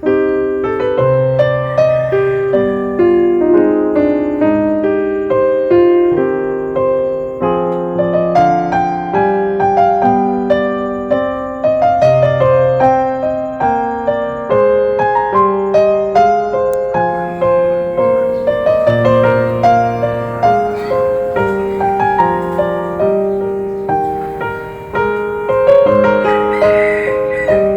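Solo piano music: a slow, gentle melody over broken chords, notes struck and left to ring.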